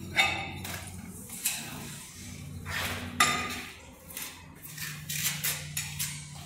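Hard ceramic pieces clinking and knocking together at irregular intervals, the sharpest knocks near the start and about three seconds in, over a steady low hum.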